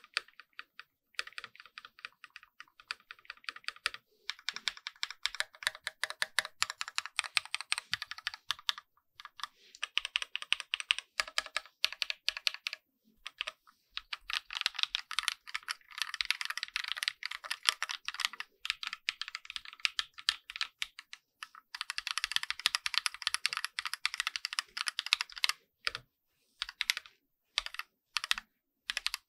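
Typing sound test on a Keychron Q1 mechanical keyboard with hand-lubricated switches and a foam-lined spacebar: fast runs of keystrokes in bursts of a few seconds with short pauses, then a few separate, slower key presses near the end.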